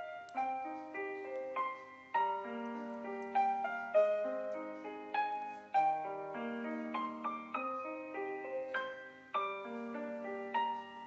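Background music on solo piano: a slow, gentle melody of single struck notes, each left to ring and fade.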